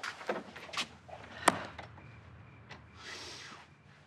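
A door shutting with one sharp knock about a second and a half in, among a few lighter knocks and steps. A short breathy hiss comes near the end.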